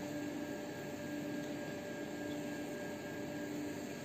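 A steady mechanical hum with a constant pitch and an even hiss beneath it, unchanging throughout.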